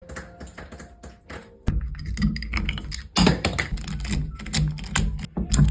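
Rapid clicks and taps of tools and parts being handled during a shower-valve repair. A little under two seconds in, a loud low rumble joins them.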